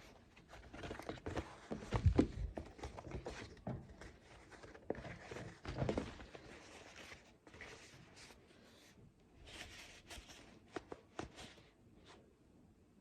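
Irregular indoor handling noises: rustling, light clicks and soft knocks, with louder low thumps about two and six seconds in.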